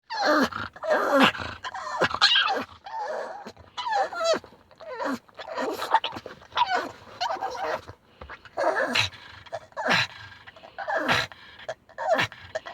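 Pug screaming with excitement, not distress: a string of loud, whining cries, each sliding down in pitch, about one a second.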